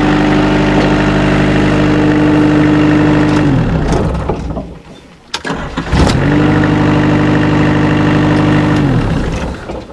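Excavator engine running at a steady speed, then winding down and stopping about three and a half seconds in. About six seconds in it starts again, spinning up quickly, runs steadily, and winds down once more near the end. A few sharp clicks fall in the short gap between.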